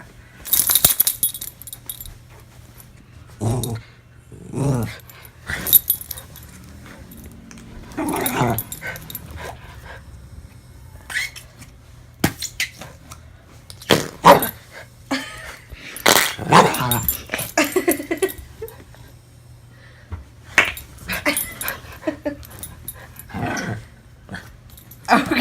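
A dog growling and barking in short, repeated bouts, wary of the fart noises of Flarp noise putty.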